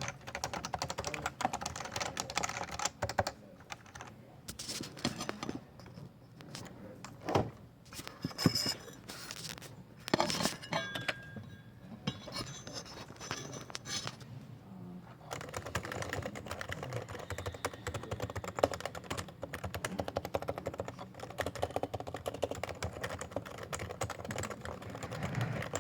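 Typing on a Topre electrostatic-capacitive keyboard. Fast, steady keystrokes give way to slower single strokes, a few of them louder, for roughly the middle third, and then to fast typing again.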